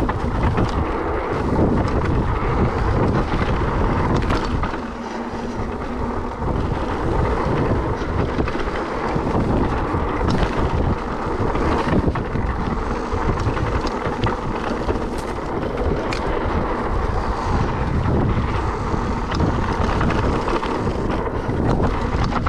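Wind buffeting the microphone over the rumble of a Trek Powerfly FS electric mountain bike's knobby tyres rolling along a dirt trail, with scattered sharp knocks and rattles from the bike over bumps.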